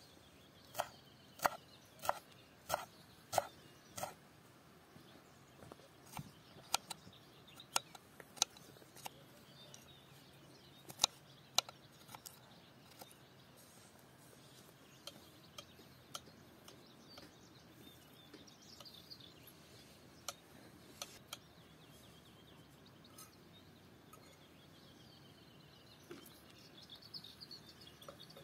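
Knife chopping herbs and garlic on a wooden cutting board: a run of about six evenly spaced knocks at the start, then scattered single knocks. Birds chirp faintly in the background.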